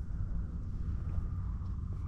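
Steady low rumble of wind on the microphone.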